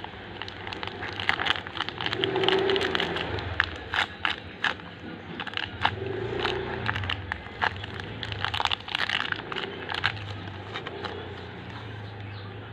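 Irregular crackling, clicking and scraping of things being handled, over a low steady hum.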